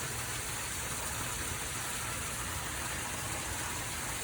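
Rainwater rushing steadily down into a drain, with no distinct splashes or knocks.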